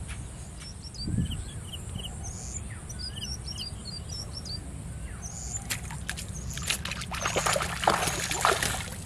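Small birds chirping in short high calls, then, after about six and a half seconds, a burst of splashing and sloshing in shallow canal water as a fishing line is jerked up out of it.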